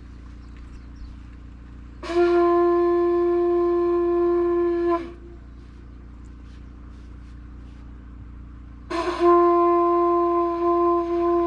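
Hawaiian conch shell trumpet (pū) blown in two long, steady blasts, each about three seconds, the first sagging in pitch as it ends: the traditional call that opens a Hawaiian welcome ceremony.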